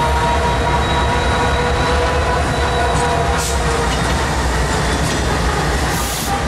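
A Norfolk Southern EMD SD60E diesel-electric locomotive and its trailing units pass at close range. Their diesel engines make a steady loud rumble over the noise of the wheels on the rail, with faint whining tones that fade about halfway through.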